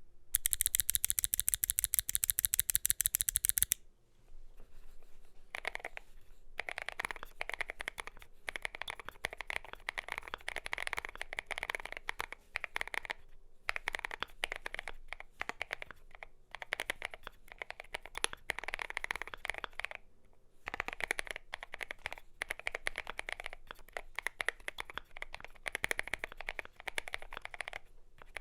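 Typing on a Glorious GMMK Pro mechanical keyboard with lubed Gazzew Boba U4T tactile switches and MT3 keycaps. A louder, very rapid run of keystrokes fills the first four seconds, then typing continues in runs with brief pauses.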